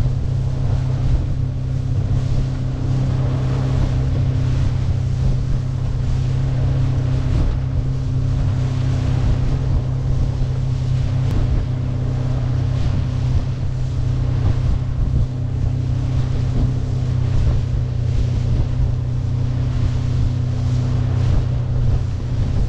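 Suzuki 50 hp four-stroke outboard running at a steady cruising speed, a constant low drone, with water rushing and spraying off the hull through the chop and wind on the microphone.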